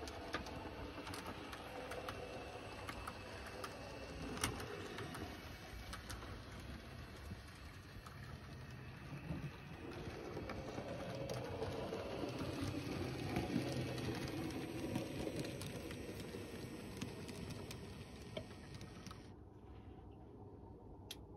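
Heljan 009-scale Lyn model locomotive running on the layout with its coaches: a low, steady motor and wheel rumble with occasional light clicks, growing louder in the middle as the train comes closer.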